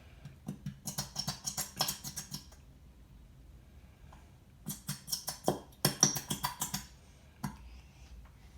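A plastic bottle of glitter glue being squeezed hard to force out the last of the glue, giving rapid clicking and crackling. It comes in two bursts, one about a second in and one around five seconds in.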